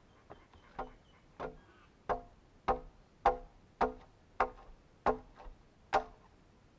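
Homemade adze with a leaf-spring steel blade chopping into a freshly split log: nine steady blows, about one and a half a second, each a sharp chop with a short ringing note.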